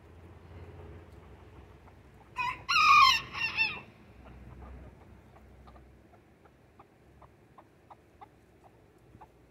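A rooster crows once, about two and a half seconds in, a loud call lasting about a second and a half. It is followed by a run of soft, short clucks from the chickens.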